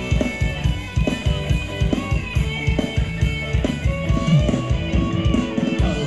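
Thai ramwong dance band music: a drum kit keeps a fast, steady beat under guitar and bass, with no singing.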